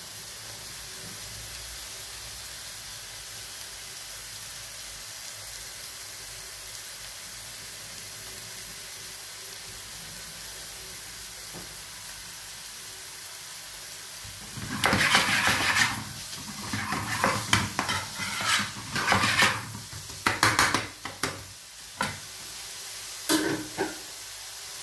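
Finely chopped onions frying in a pan with a steady sizzle. About halfway through, a metal spoon starts stirring them, giving a run of irregular scrapes and knocks against the pan.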